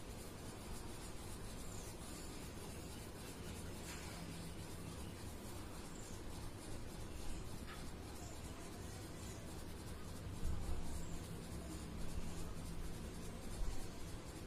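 Red crayon rubbed back and forth on paper over a clipboard while colouring in a drawing, a steady scratching, with a few low bumps in the second half.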